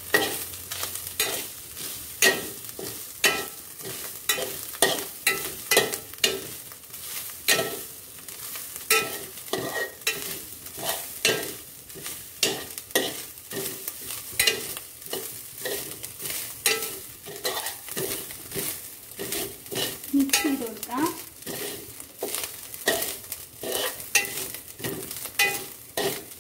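Steel spoon scraping and tapping against a metal pot, about two strokes a second, as grated coconut is stirred and turned in hot oil over a light sizzle.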